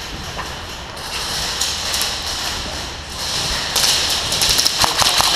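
Airsoft gun firing a rapid string of shots, about ten clicks a second, starting a little over halfway through and getting louder toward the end. Before it there is rough noise from movement.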